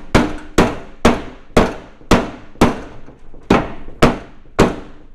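Hammer blows on the aluminum hull of a jon boat, about two a second, each ringing briefly, with a short pause partway through. The aluminum is being knocked back over an old rivet.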